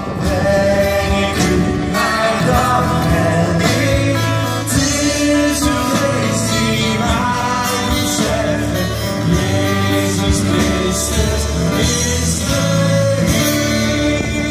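Live Christian worship band singing and playing with guitars, amplified over a PA.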